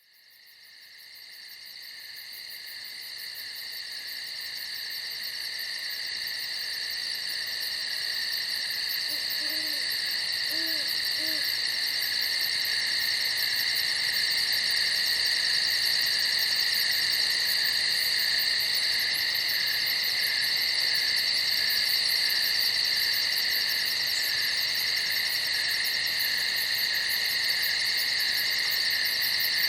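A dense chorus of crickets chirping steadily, fading in over the first several seconds and then holding steady. Three faint, short, low hoots come about ten seconds in.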